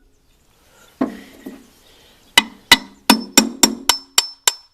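Hammer tapping on the shaft of a snowblower gearbox to drive it out of the housing: one strike about a second in, then a quick run of about eight ringing metal taps in the second half.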